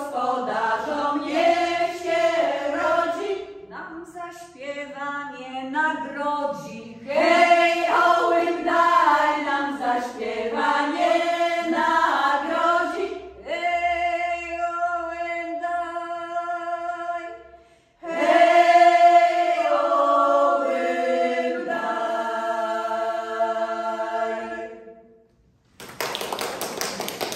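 Women's vocal ensemble singing an old Polish village folk song a cappella, several voices together in long held chords. The singing ends about a second before an even noise begins near the close.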